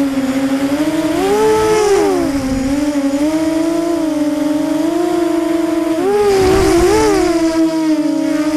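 FPV quadcopter's electric motors and propellers whining steadily. About a second in and again about six seconds in, the pitch splits into several tones that swoop up and down as the throttle changes, with a burst of rushing noise.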